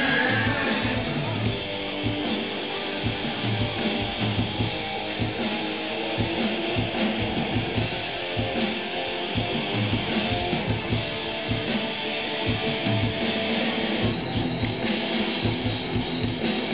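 Rock band playing live: electric guitars over a steady drum-kit beat.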